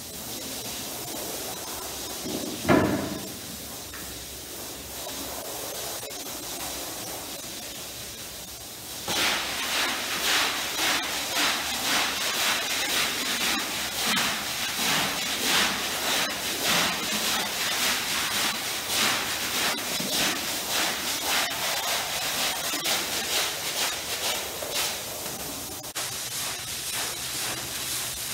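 Water spraying onto a shampooed wool rug with a steady hiss, broken by a single thump about three seconds in. About a third of the way through, a stiff push broom starts scrubbing the wet, foamy pile in quick, rhythmic back-and-forth strokes, louder than the spray.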